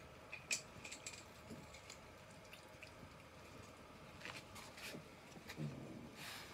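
Faint, scattered clicks and small wet, squishy sounds from a group of cats eating and moving about on a tiled floor, with a short, low cat vocalization near the end.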